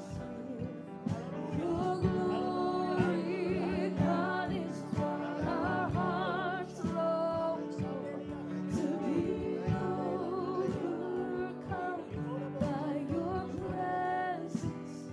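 Gospel worship music: women singing with vibrato over instrumental backing, with the congregation praising aloud.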